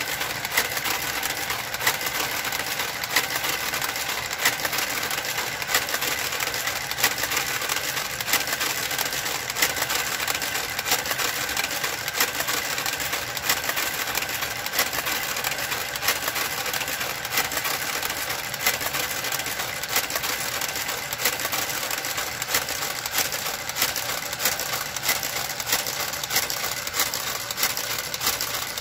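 Brother knitting machine's motorised garter carriage running along the needle bed as it knits a row: a steady motor whir with constant fast clicking of the needles.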